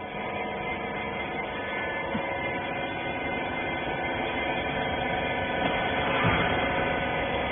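Rag baler's electric hydraulic pump unit running with a steady hum and whine, the level creeping up slightly before it cuts off abruptly at the very end.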